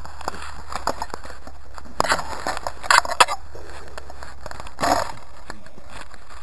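Camera handling noise as the camera is moved about and set down: scraping and crackling, loudest in short clusters about two, three and five seconds in, over a steady low hum.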